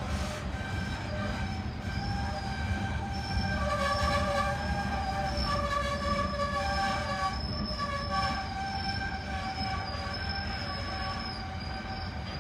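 Freight train's garbage cars rolling past over a steady low rumble, with their wheels squealing in several high, wavering tones. The squeal is loudest around the middle.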